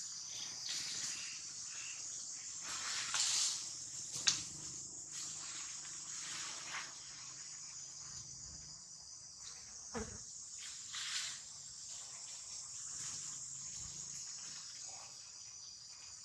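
Steady high-pitched drone of insects, with a few short knocks and brief rustles over it.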